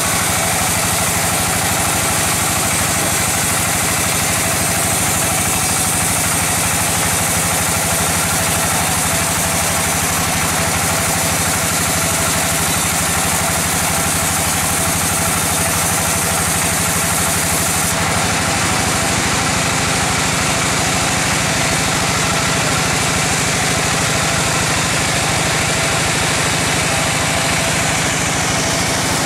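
Large sawmill band saw running steadily as it cuts a teak log, with the even hum and regular throb of its drive engine. The tone shifts slightly about two-thirds of the way through.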